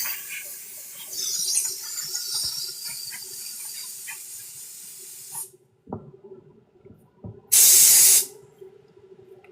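Hissing spray: a steady high hiss for about five seconds that cuts off sharply, then one short, loud burst of spray about three-quarters of the way in. A faint steady hum runs underneath.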